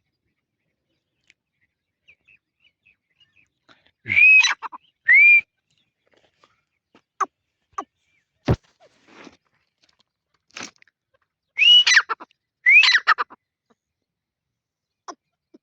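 Teetar (francolin) calling with loud whistled notes that rise and level off: a pair about four seconds in, then another pair near twelve seconds whose notes rise and then drop. Scattered short clicks fall between the calls.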